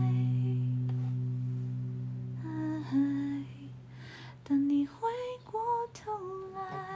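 A woman singing softly over a guitar. A held guitar chord fades away through the first few seconds, then she sings a few short, wavering notes in the second half.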